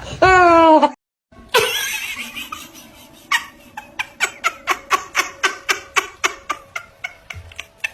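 Laughter in quick rhythmic pulses, about four a second, fading toward the end. A short drawn-out laugh is cut off about a second in.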